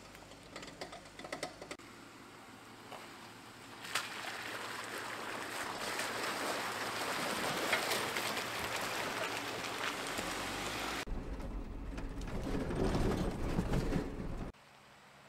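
Jeep Wrangler driving through a mud puddle on a forest trail: several seconds of steady splashing and rushing water, then a deeper rumble of engine and tyres heard from inside the cab, cut off suddenly near the end.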